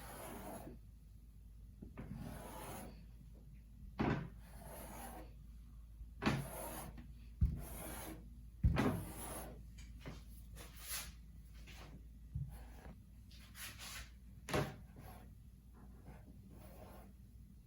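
Rolled-out dumpling dough being cut into pieces: irregular scraping and rubbing strokes of the blade against the work surface, with several sharp knocks spread through.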